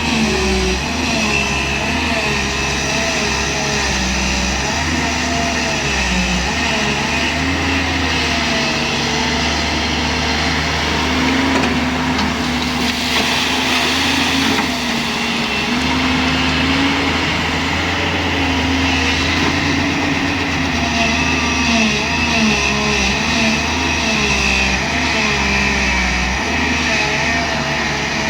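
Diesel engine of a JCB 205 LC excavator running steadily while working, its pitch rising and falling slightly.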